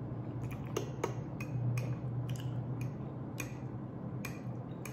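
Metal fork clicking and scraping against a plate in a dozen or so small, irregular ticks as food is picked up, over a low steady hum.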